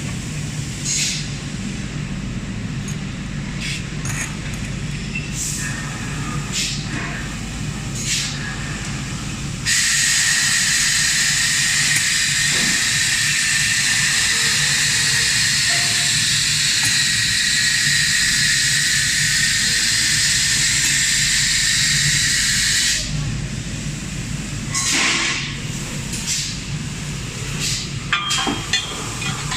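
Robotic laser welding machine: a steady machine hum with scattered short hisses, then about ten seconds in a loud, even hiss of the weld starts abruptly, runs for about thirteen seconds and cuts off.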